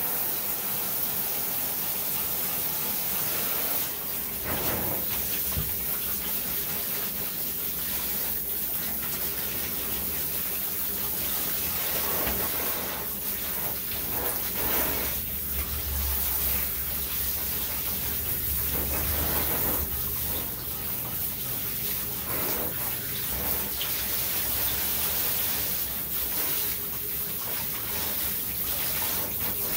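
Water running steadily into a tub as a dog is bathed, a continuous rushing hiss.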